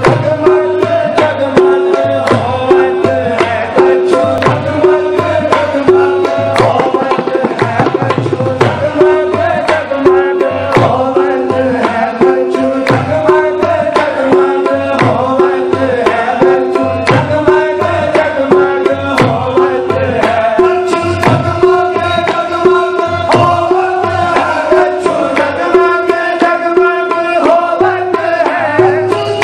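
Qawwali music: tabla playing a steady, rhythmic pattern of pitched strokes under a sustained harmonium melody.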